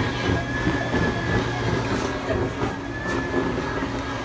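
Build-A-Bear stuffing machine's blower running: a steady hum with a thin, even whine, as stuffing is blown into a teddy bear.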